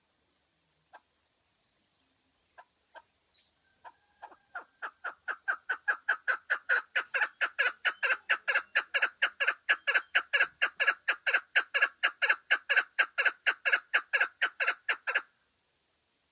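Lal keklik (chukar partridge) calling. A few scattered notes come first, then from about four seconds in a fast, even run of clucking 'chuck' notes, about four or five a second, swells in loudness and cuts off suddenly near the end: the chukar's rally call.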